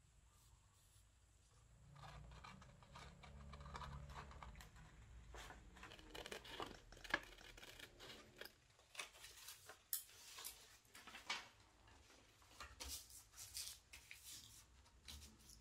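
Paper crinkling and rustling as it is cut with scissors: a quiet string of short snips and rustles. A low rumble runs under the first few seconds.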